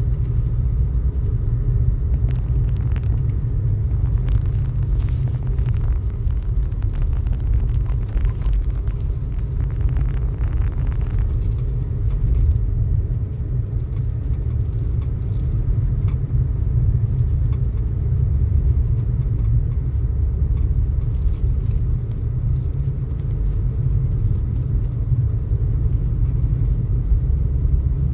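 Land Rover Discovery 4 driving on a snow-covered road, heard from inside the cabin as a steady low rumble of engine and tyre noise. Faint scattered ticks come through in roughly the first ten seconds.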